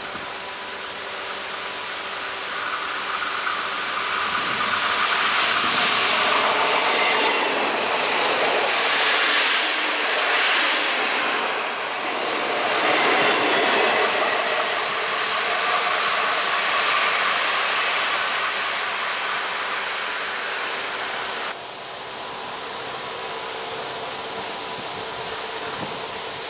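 SA133 diesel railcar passing close by on jointed track, its run of wheel and engine noise building up, peaking mid-way and fading. After a cut near the end, a quieter steady rail-side sound as an SM42 diesel shunter approaches.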